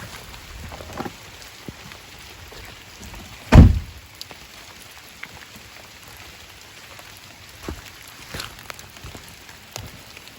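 Scattered water drops tapping on a surface, with one loud, deep thump about three and a half seconds in.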